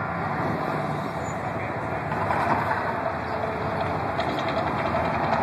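Steady roaring rumble of the Mirage volcano attraction in eruption, mixed with street noise.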